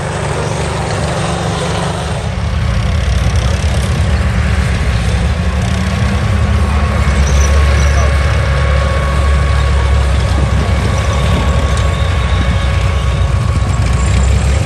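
Tanks driving across a dirt arena: an M51 Sherman, then a column of Cold War tanks including a Centurion, their engines giving a loud, deep, steady rumble that grows louder about two seconds in as the column comes closer.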